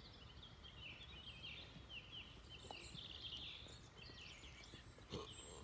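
Faint outdoor birdsong: many short chirps and twitters over a low background rumble, with a single soft knock near the end.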